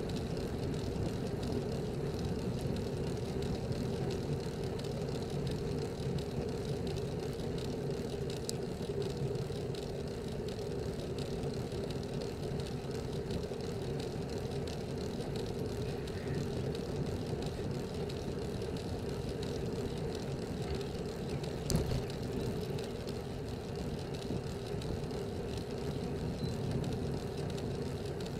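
Steady wind and road noise on the microphone of a road bicycle's mounted camera, riding uphill at about 20 km/h, with a single brief knock a little after three-quarters of the way through.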